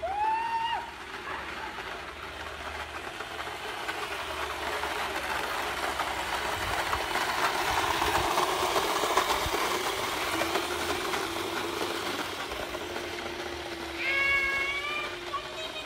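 Electric scooter rolling along an asphalt street, its rolling noise swelling as it passes close by about halfway through and then easing off. A short high-pitched rising cry comes right at the start and a longer one near the end.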